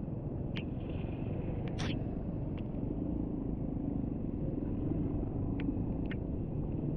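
Motorcycle running steadily as it is ridden along a rain-wet road: a low rumble of engine and road noise, with a few faint clicks.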